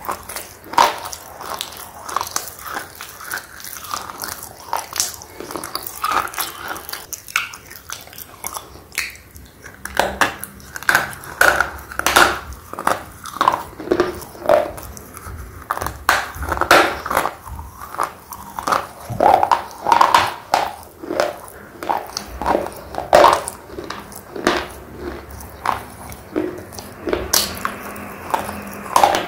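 Red slate pencils being bitten and chewed: many crisp crunches in quick, irregular succession as pieces snap off and are ground between the teeth.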